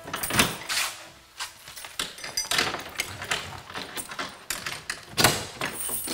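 Footsteps, then keys and a lock clicking at a barred metal cell door. A heavy metal clank about five seconds in as the cell door is unlocked and pulled open.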